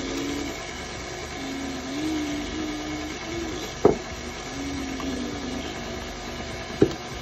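KitchenAid Artisan stand mixer running with its flat beater turning through thick cake batter: a steady motor hum with a tone that wavers in pitch. Two sharp knocks, a little under four seconds in and again near the end.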